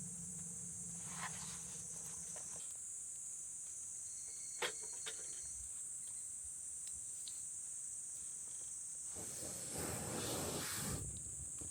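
Crickets chirring steadily in a continuous high-pitched drone, with a few sharp clicks and a louder rustling shuffle near the end.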